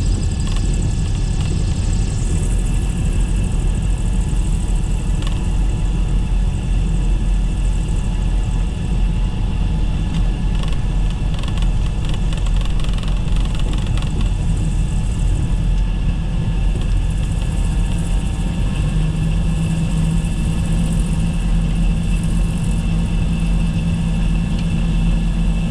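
Cessna 340's twin piston engines running at low power after landing, heard inside the cockpit as a steady, loud drone. A steadier hum joins about two-thirds of the way through.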